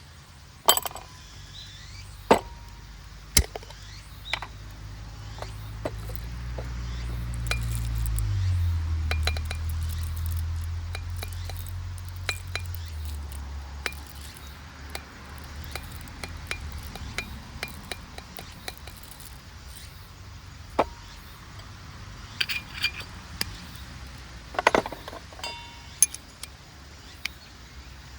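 Scattered clinks and taps of camp cookware or tableware being handled, with a low rumble that swells and fades over several seconds midway.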